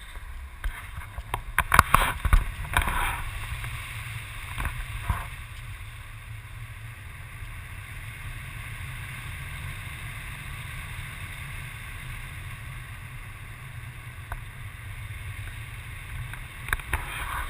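Wind rushing over the microphone in flight under a tandem paraglider: a steady low rumble with a hiss. A few sharp knocks or rustles come about two seconds in, again around five seconds, and near the end.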